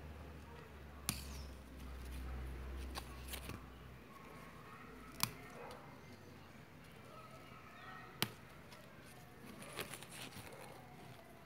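Several sharp, separate clicks over a faint background, with a low rumble that stops about four seconds in.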